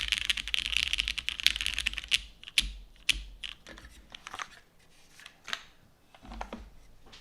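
Custom Matrix Labs 8XV 3.0 mechanical keyboard with Hyperglide switches lubed with 205g0, a carbon fibre plate and GMK keycaps being typed on. Fast continuous typing runs for about two seconds, then slows to scattered single keystrokes that thin out toward the end.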